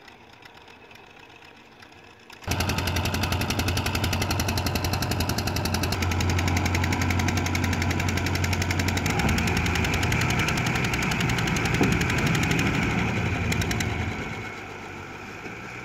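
Diesel tractor engine working hard under a heavy load as it pulls a fully loaded trolley, a loud, rapid rattling beat over a deep drone. It starts abruptly a couple of seconds in and eases off near the end.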